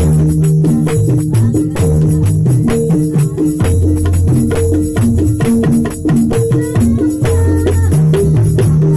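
A pair of Javanese kendang hand drums played with both hands in a fast, dense rhythm, over held low notes that step from pitch to pitch.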